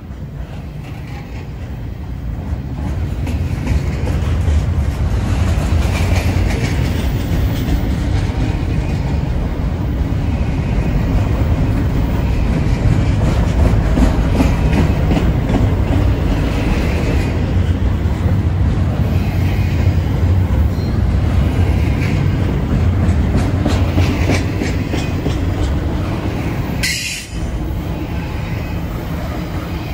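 Double-stack intermodal container well cars rolling past close by: a steady heavy rumble, growing louder over the first few seconds, with the clickety-clack of steel wheels over rail joints. A brief sharp, higher sound comes near the end.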